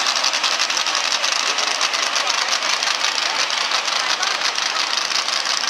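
Diesel pickup truck engine idling with a fast, steady clatter.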